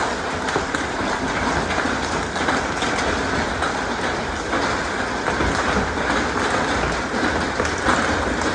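Heavy hail pelting wet pavement: a dense, steady clatter of countless hailstones striking and bouncing on the asphalt, with splashing in the standing water.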